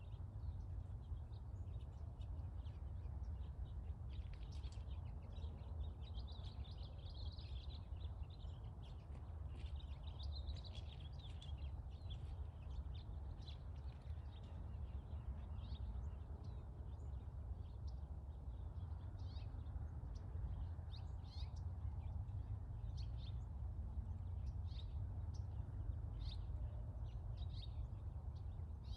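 Small birds chirping again and again over a steady low rumble of outdoor background noise.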